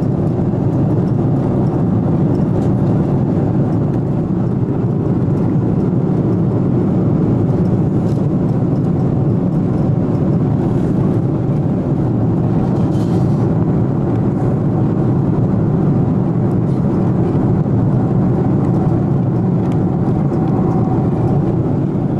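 Steady low rushing cabin noise of a jet airliner in flight, engine and airflow noise heard from inside the cabin.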